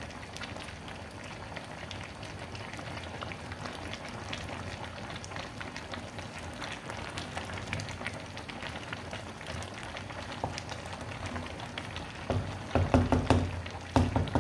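Thick blended tomato and pepper sauce boiling in a pot, bubbles popping in a steady fine crackle. Near the end come a few louder low bumps as a spoon stirs the pot.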